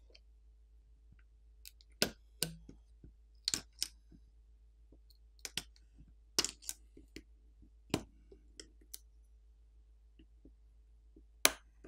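A dozen or so light, sharp clicks at irregular intervals, the sharpest near the end: a plastic pry pick and metal spudger working at a smartphone's flex-cable connectors, the connectors clicking as they are popped off the board.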